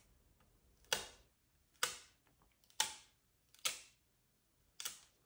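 Dust-removal sticker dabbed onto a smartphone's glass screen and lifted off again: five short sticky taps, about one a second.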